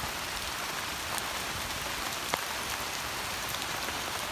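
Steady rain falling on forest foliage, an even hiss, with one short click a little over two seconds in.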